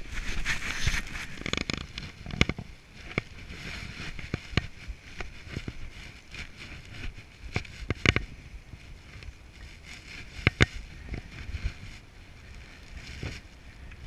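Parachute risers and suspension lines handled by a skydiver gathering a landed canopy: scattered knocks and rustles of gear against the head-mounted camera, over a low hiss.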